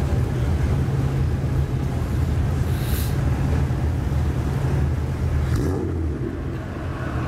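Lowered C110-generation Nissan Skyline sedan's engine idling through its exhaust: a steady low rumble. Brief hissing bursts come about three seconds in and again about five and a half seconds in.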